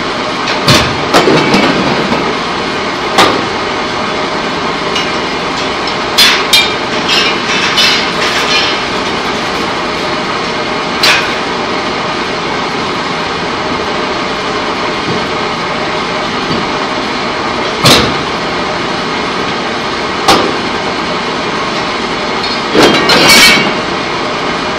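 Loud, steady machinery noise of a pipe-coating line, broken every few seconds by sharp metal clanks and bangs, with a quick run of them partway through and a double bang near the end.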